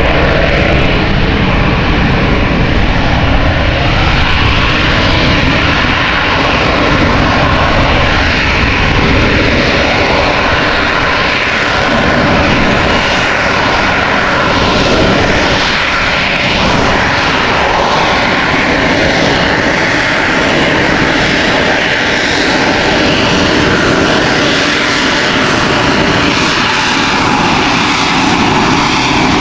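AV-8B Harrier II's Rolls-Royce Pegasus vectored-thrust turbofan running at high power close by: an intensely loud, steady jet noise with a faint whine that drifts slightly in pitch.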